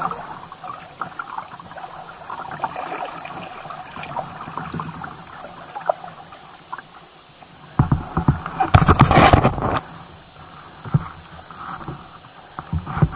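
Kayak paddles dipping and water dripping and lapping around the hulls, with light scattered clicks. About eight seconds in, a loud rough noise lasts about two seconds.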